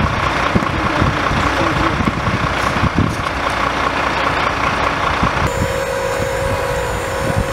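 Truck engines running, with wind rumbling on the microphone and a rapid, steady electronic beeping. About five and a half seconds in, a cut brings a steadier engine hum with a held tone.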